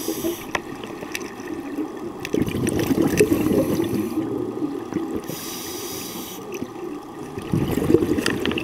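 Scuba diver breathing underwater through a regulator: the hiss of an inhale alternates with longer, rumbling bursts of exhaled bubbles, about two breaths in all.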